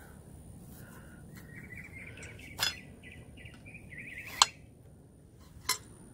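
Three sharp metallic clicks from a hand-held metal weed-extractor tool being worked into the lawn, the loudest about four and a half seconds in. A bird chirps a quick run of short, high notes underneath for about three seconds.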